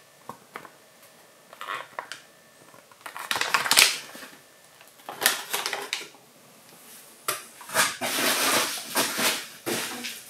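Thin clear plastic bag crinkling and rustling as it is handled, in several separate bursts. The longest burst comes near the end.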